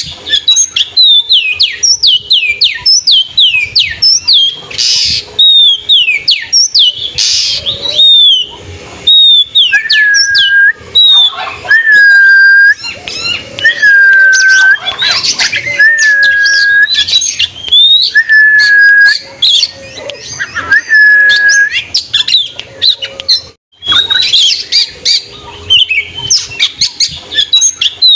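Oriental magpie-robin (kacer) singing loudly: quick strings of falling whistled notes, then, from about a third of the way in, a run of about six long level whistles, each about a second, before the quick falling notes return near the end.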